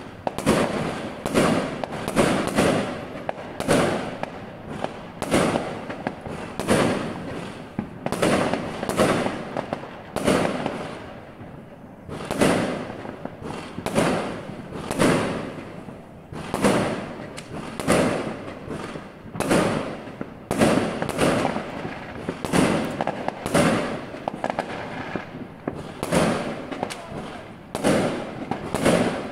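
Aerial fireworks exploding in a continuous run of sharp bangs, roughly one or two a second, each with an echoing tail, heard from indoors through a window.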